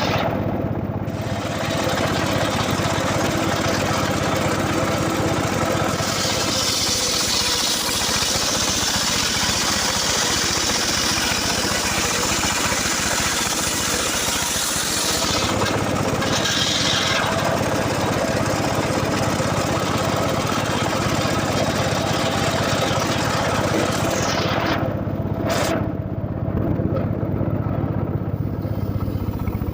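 Engine-driven wood saw running steadily. Twice it cuts into wood: a long harsh hiss of cutting from about six to fifteen seconds in, then a short one soon after.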